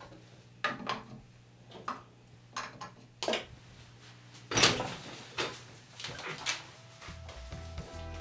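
A series of light clicks and knocks, about eight over some six seconds, the loudest about four and a half seconds in, as small hard objects are handled and set down. Background music comes in near the end.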